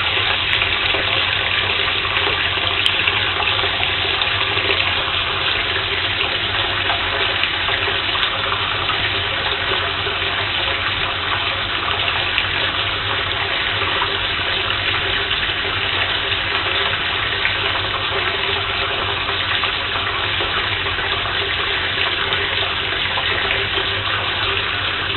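Water running steadily from a tap into a bathtub, an unbroken rush of pouring water.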